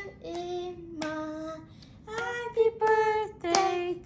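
A young girl singing, holding each note for a long moment, with a few sharp clicks between phrases.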